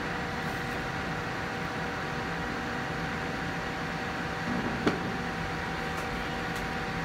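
Hanstar 493-MP smoke absorber's fan running steadily, a constant rush of air with a few held humming tones, drawing solder smoke into its activated carbon filter. A single short click about five seconds in.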